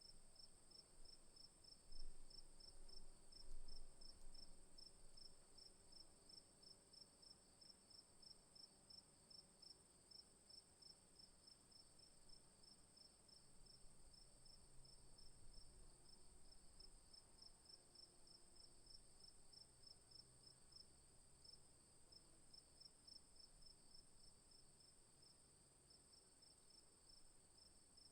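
Crickets chirping faintly: one keeps up a steady high trill while another chirps in rapid, evenly spaced pulses just below it.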